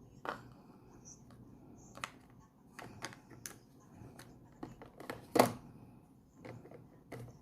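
Irregular clicks and knocks of coffee maker parts being handled and fitted together, about eight or nine sharp taps with the loudest a little past five seconds in.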